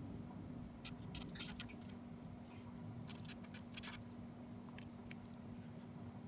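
Felt-tip marker writing on a paper flash card: faint, quick scratching strokes in short clusters, about a second in, again around three seconds in, and a couple more near the end, over a steady low hum.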